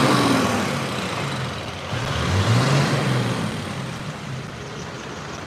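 Truck engine passing close by and fading as it drives off, its pitch dipping and then climbing again about two seconds in, over tyre and road noise.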